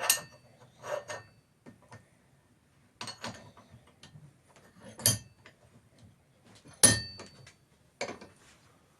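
Metal tools and parts being handled and set down on a workbench: about six separate clinks with a short metallic ring, the loudest near the end.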